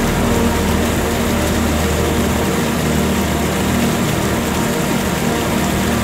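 Ambient background music: sustained low drone tones that change chord every few seconds, over a steady rushing hiss.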